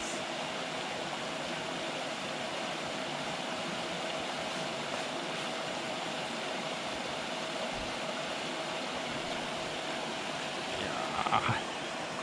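Steady splashing hiss of a pond aerator churning the water, with a faint steady hum under it. About a second before the end, a short, louder sound that bends up and down in pitch.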